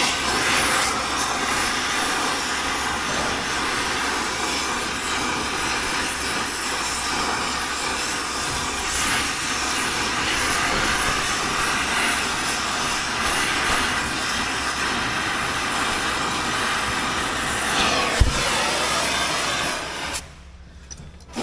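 Oxy-acetylene torch burning with a steady hiss while it heats a seized gear-shift shaft. A single sharp pop comes near the end, and just after it the hiss cuts off suddenly as the torch is shut off.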